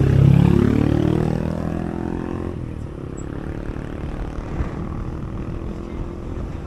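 A motor vehicle's engine accelerating close by, its pitch rising for about two and a half seconds, then dropping back and running steadily.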